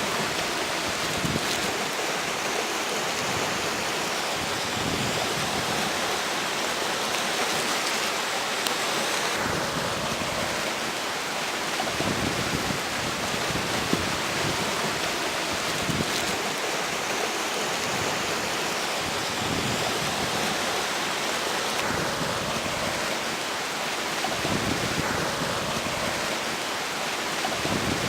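A river rushing steadily past the bank, with strong wind blowing in gusts and rumbling now and then on the microphone.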